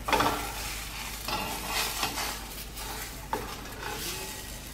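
Spatula scraping and pushing thick pancake batter around a nonstick frying pan in several strokes, the sharpest right at the start, over the sizzle of the batter frying. A short click comes a little past three seconds in.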